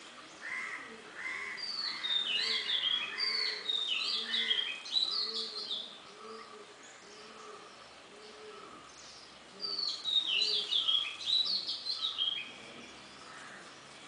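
Red-whiskered bulbuls calling: two bouts of quick, high, falling chirpy notes, the first starting about a second and a half in and the second near the two-thirds mark. Underneath, a low note repeats a little faster than once a second.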